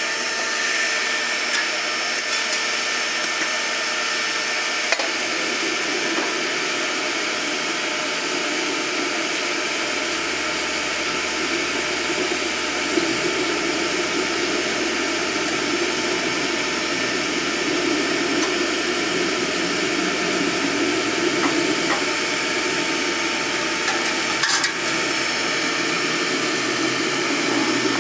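Shop vacuum running steadily, a continuous motor whine and rush of air, with a few light knocks about five seconds in and near the end.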